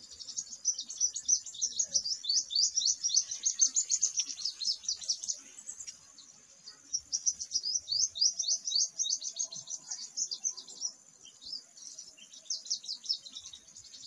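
Purple sunbird singing: a fast, high-pitched trill of quick chirps, delivered in two long bursts of several seconds each with a short pause between, then a shorter, fainter burst near the end.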